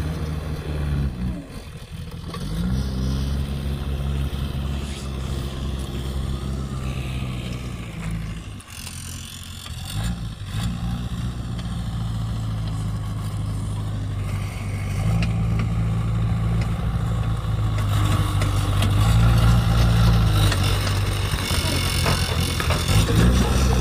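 JCB 3DX backhoe loader's diesel engine running under working load, its revs dropping back briefly twice and rising again, running harder and louder in the second half.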